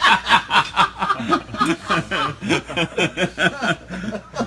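Men laughing, with quick repeated laughs that tail off near the end.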